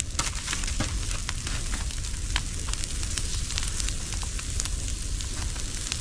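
Bonfire of old bedding and household junk burning, a steady hiss broken by frequent sharp crackling pops.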